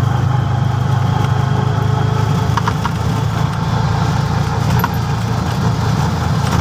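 Auto-rickshaw (three-wheeler) engine running steadily as it drives along a dirt lane, heard from inside the cabin, with a few brief clicks or rattles about midway.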